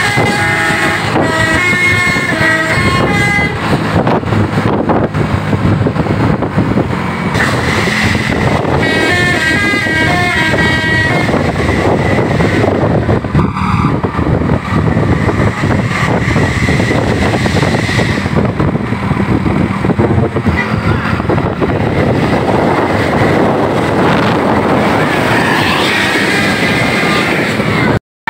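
Tour bus musical "telolet" air horns playing quick multi-note melodies, the notes stepping up and down, in bursts near the start and again about eight to eleven seconds in, over the steady noise of bus engines and traffic.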